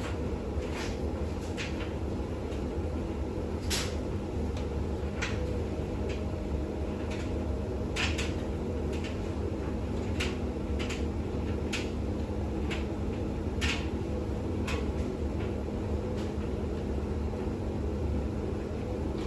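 Bosch WAX32GH1 washing machine in its intermediate spin with a full load: the drum and motor run with a steady hum, and irregular sharp clicks and knocks come about once or twice a second.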